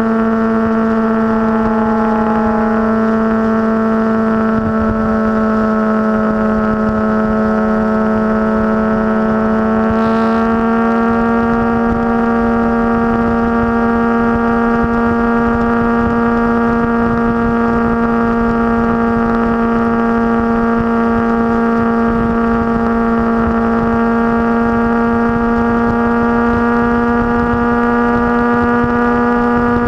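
Motorcycle engine running steadily at cruising speed, a constant drone whose pitch sags slightly and then steps up a little about a third of the way in.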